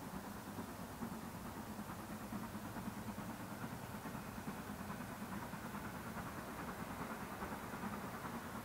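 Steam locomotive working towards the listener from a distance, heard as a faint, steady low rumble.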